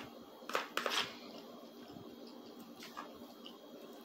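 Metal spoon scraping and clinking against a plastic plate while scooping food, a few quick scrapes about half a second to a second in and a fainter one near three seconds.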